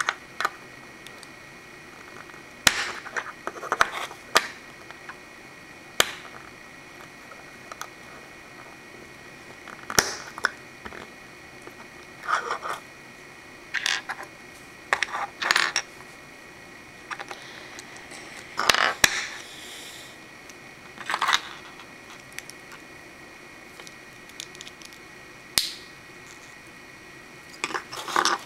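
Hard plastic Lego Bionicle pieces clicking and clattering on a wooden table as they are handled, set down and snapped together. The clicks and short rattles come at irregular intervals over a faint steady hum.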